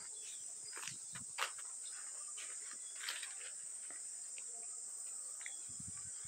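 Steady high-pitched buzzing of an insect chorus, with a few scattered faint clicks and scuffs, one sharper click about a second and a half in.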